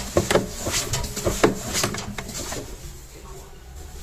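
Hands working a cloth in the washing machine's bearing housing to wipe out grease, with a run of light clicks and knocks from handling that thin out near the end.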